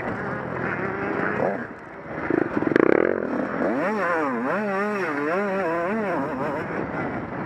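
Honda CR125 two-stroke single-cylinder motocross engine being ridden hard, its pitch swinging up and down quickly as the throttle is worked. Just before two seconds in it drops off briefly, then a loud clatter comes, followed by a run of fast rises and falls in revs.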